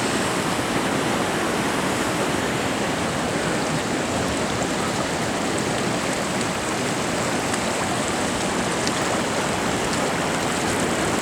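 Floodwater rushing steadily through a creek swollen far above its normal size, a constant wash of moving water.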